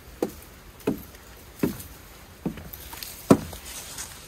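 Footsteps on a wooden boardwalk: hollow knocks on the planks about one step every 0.8 seconds. The steps grow louder as the walker comes close and passes, loudest a little over three seconds in.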